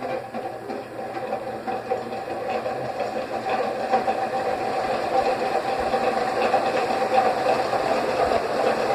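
Tron Ipanema ceiling fan running: a steady motor hum over the rush of moving air, growing louder over the first few seconds, then holding steady.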